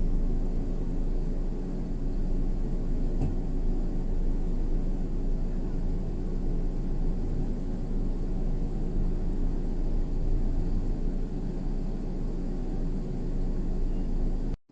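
Steady low rumble of vehicle noise, even throughout, cutting off suddenly right at the end.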